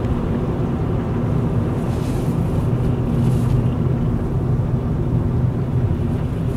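Steady engine and road noise inside a moving car's cabin: a continuous low hum with no sudden events.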